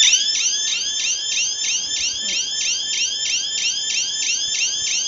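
Electronic siren of a GA222G GSM alarm system sounding in alarm, set off by opening a door sensor while the system is armed. A loud, high, rapid warble that rises and falls about four times a second without a break.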